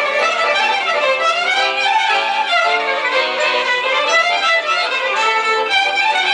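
Several violins played together as fiddles, bowing a tune with many quickly changing notes.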